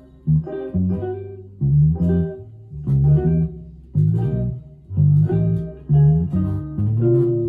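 Headless Cort electric guitar with flatwound strings playing plucked chords and notes, a new one struck roughly once a second and left to ring and fade.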